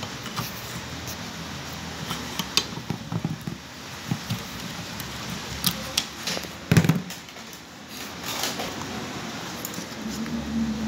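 Scattered light clicks and knocks of plastic and metal as the plastic glass carrier and its cable are handled on a steel car window-regulator rail, with one louder thump about two-thirds of the way through.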